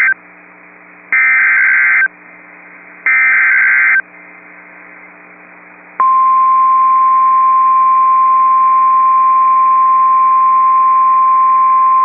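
Emergency Alert System SAME header data bursts over NOAA Weather Radio: the end of one burst, then two more about a second long each, a second apart. After about two seconds of faint radio hiss, the 1050 Hz weather radio warning alarm tone starts about six seconds in and holds steady at one pitch, the signal that a warning message is about to be read.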